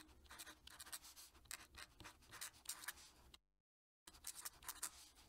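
Fountain pen nib scratching across paper in quick, irregular cursive strokes, faint throughout. A brief dead-silent break a little past halfway, then the strokes resume.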